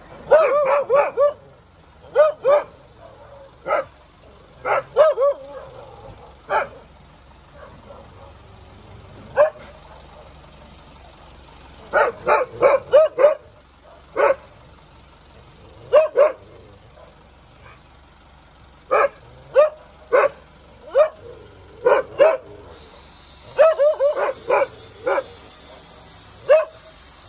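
Two dogs barking, in quick runs of several barks separated by pauses of a second or a few seconds.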